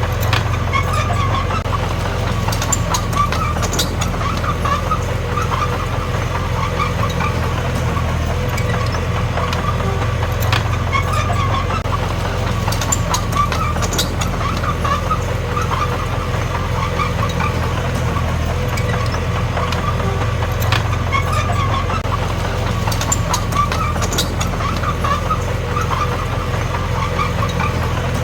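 D21P bulldozer's diesel engine running steadily under work, with scattered sharp clanks and clicks from the machine.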